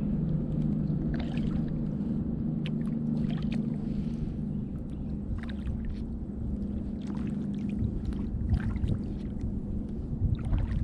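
Kayak paddle dipping into the water, with irregular small splashes and drips over a low rumble. A steady low hum fades out about halfway through.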